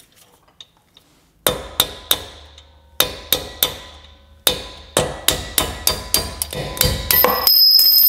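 Hammer striking a steel punch to drive out the brake pad retaining pin of a Porsche 981 Cayman S brake caliper, with sharp, ringing metal-on-metal taps. They come in two groups of three, then as a quicker run of about four taps a second.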